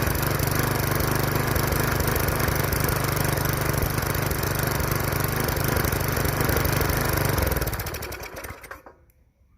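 Bolens rototiller's Briggs & Stratton 4.75 hp single-cylinder engine running steadily. It is being run hard to clear a clogged carburetor jet. About seven and a half seconds in it winds down and stops.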